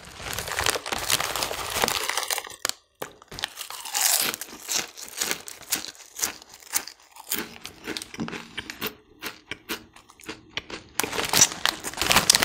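A foil snack bag crinkling, then close-up crunching as thin, crisp puffed snack pieces are bitten and chewed in irregular crackles. The bag crinkles loudly again near the end.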